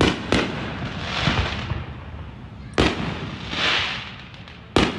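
Fireworks going off: sharp bangs, two close together at the start, another a little before the three-second mark and one near the end, each followed by a rush of noise lasting about a second.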